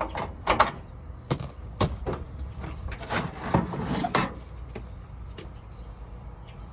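Irregular clicks and knocks of a hand tool on metal as the last tailgate bolt is undone, a dozen or so sharp strikes, busiest in the first four seconds and sparser after.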